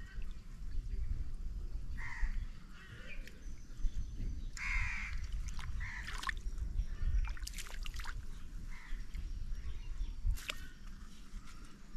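Harsh bird calls, repeated every second or two, over a steady low rumble, with a few sharp clicks in between.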